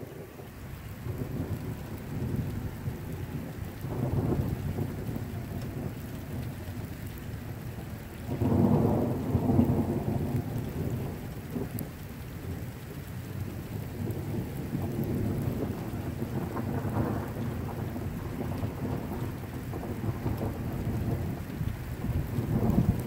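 Thunder rumbling in long rolls from a lightning storm, swelling several times and loudest about a third of the way through, with rain falling.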